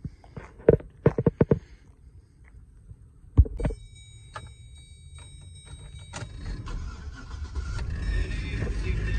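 A few sharp clicks and knocks, then a heavy thud about three and a half seconds in, followed by a steady electronic warning chime from the 2004 Chevrolet Silverado's dash. The chime stops a little past halfway, and the pickup's engine starts and settles into a running hum that grows steadily louder.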